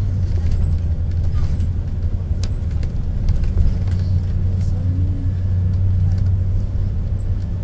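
School bus driving along, heard from the driver's seat: a steady low rumble of engine and road, with a few sharp ticks and rattles from the cabin.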